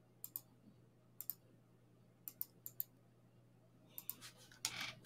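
Faint computer mouse and keyboard clicks, in pairs and short runs, over a low steady hum.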